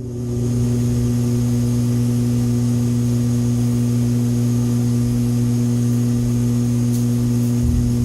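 Payne air conditioner's seized compressor humming loudly when powered, a steady electrical buzz that never rises into running: the compressor has seized.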